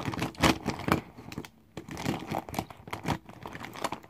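Sharpie markers knocking together and a crinkly metallic fabric pencil pouch rustling as the markers are packed into it: irregular rustles and small clicks.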